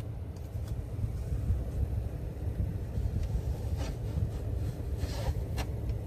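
A steady low rumble, with a few soft rustles and squeaks in the second half as a paper tissue wipes condensation off a plastic ceiling vent-fan cover.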